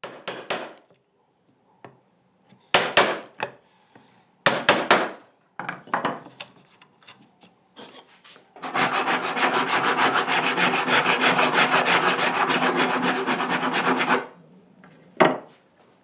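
Hand tools working European beech while tenons are cut: a few separate short strokes, then from about nine seconds in some five seconds of continuous rapid scraping, and one last stroke near the end.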